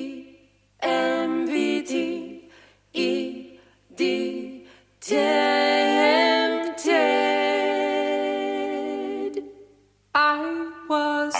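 Music: a lone singing voice without accompaniment, giving short phrases that each die away, then two long notes held with vibrato before a pause near the end.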